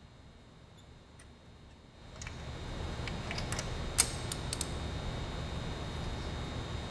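Socket ratchet on an extension clicking in short runs as it is worked to loosen a spark plug. The clicks come a few at a time, starting about two seconds in, with the loudest one about four seconds in. A low steady rumble comes up at the same point.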